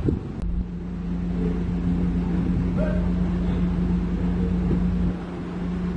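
Heavy diesel engine running steadily at constant speed, a low even drone with a steady hum that sets in about half a second in.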